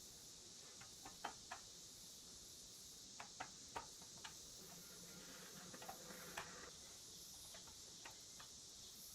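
Faint scattered clicks and light taps, about a dozen, irregularly spaced, over a steady hiss.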